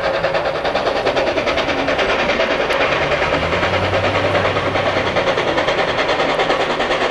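Nickel Plate Road 765, a 2-8-4 Berkshire steam locomotive, running toward the listener with a fast, even beat of steam exhaust.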